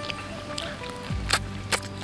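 Background music with steady held tones, and two sharp mouth clicks of eating, a bit over a second in and again about half a second later, as she chews chicken.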